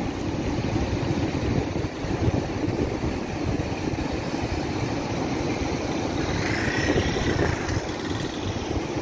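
Muddy river in flood rushing over and around a concrete weir: a steady, heavy rush of water, with wind buffeting the microphone.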